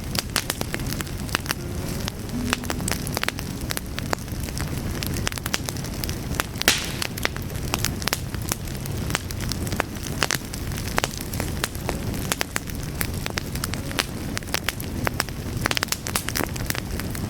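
Wood fire burning with a steady low rush and frequent sharp crackles and pops from the logs, one louder pop about seven seconds in.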